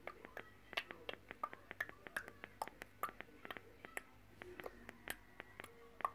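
Video game sound effects: rapid, irregular clicks, several a second, with short high bleeps between them.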